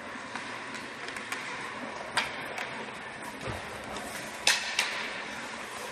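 Ice hockey play in a rink: a steady hiss of skates and crowd murmur, with a sharp clack of stick and puck about two seconds in and two more in quick succession about four and a half seconds in. A dull low thud comes about halfway through.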